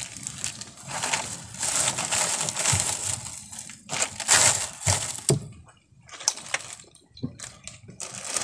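Plastic bag and snack wrappers crinkling and rustling close by, in irregular bursts, with two brief lulls in the second half.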